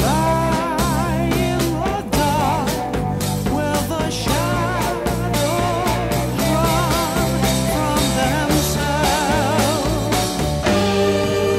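Background rock music with drums, bass and a wavering melodic lead. Near the end it changes to sustained string chords.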